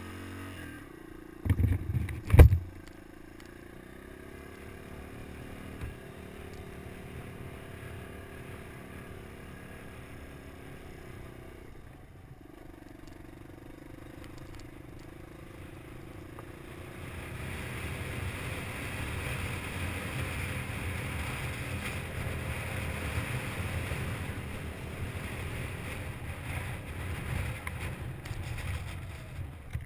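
Suzuki DR200's single-cylinder four-stroke engine running at low speed on a rough dirt track. There are a few sharp knocks about two seconds in. A little past halfway the sound grows louder and rougher, with more rumble and rattle.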